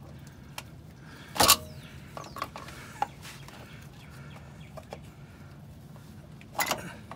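Metal clanks and clicks from a universal oil-filter wrench and ratchet worked on a spin-on oil filter, trying to break it loose. Two sharp, louder clanks, about a second and a half in and near the end, with a few lighter clicks between.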